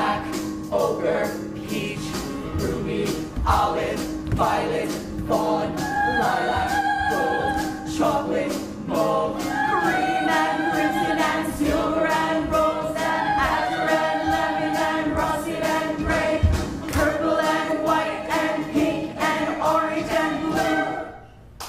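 A stage chorus of mixed voices singing together over musical accompaniment, ending abruptly just before the close.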